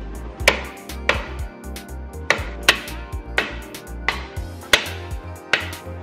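Hammer blows on a wooden board held against a car's front bumper mount, driving a stuck part into place. About ten sharp knocks come at uneven intervals under a second apart, over background music.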